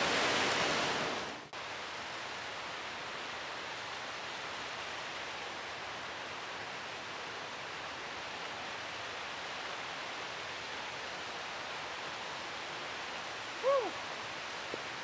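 Steady rushing of falling water, loud for the first second or so, then fading and dropping off about a second and a half in to a quieter, even rush of moving water. A short falling chirp sounds near the end.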